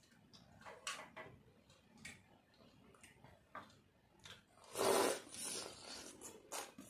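Close-up eating sounds of someone eating rice and fish by hand: small clicks of chewing and lip smacking, and fingers working the food on a plate. About five seconds in comes a louder burst of noise lasting around half a second.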